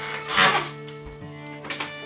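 Background music with steady, held notes. About half a second in, a short, loud burst of noise cuts across it, and a fainter one follows near the end.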